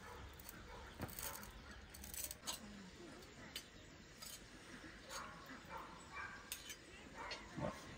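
A spoon and fork clinking and scraping against a metal serving tray and china plates as rice is dished out: light, scattered clinks several times over.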